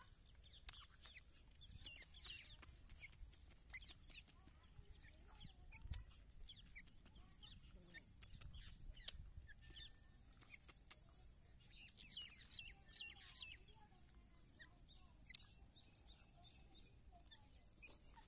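Faint, soft clucking and short chirping calls of a grey francolin, scattered through the clip.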